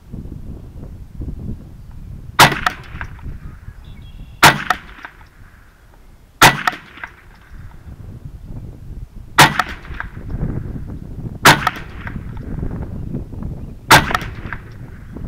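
Savage 64F semi-automatic .22 LR rifle fired six times, each shot a sharp crack with a short ringing tail, spaced about two seconds apart with a slightly longer pause after the third.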